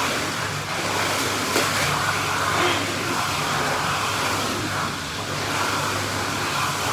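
Indoor pool's water jets running: a steady pump hum under the rush of churning water.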